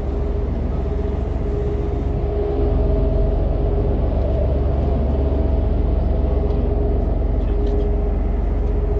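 A fishing boat's engines running steadily under way: a low rumble with a steady hum over it, growing a little louder about two and a half seconds in.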